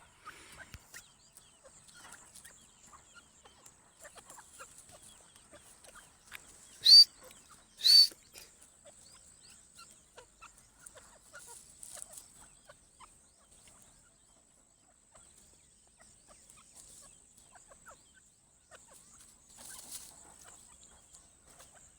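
Teetar partridge giving two short, loud, high calls about a second apart, each rising in pitch, over faint scattered ticking.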